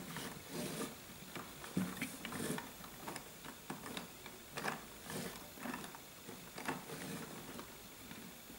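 Lego bricks clicking and knocking, an uneven run of small plastic taps as the brick model is handled and its parts moved.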